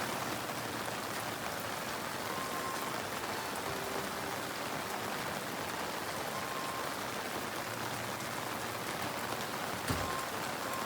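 Steady heavy rain pattering on surfaces, with one brief knock near the end.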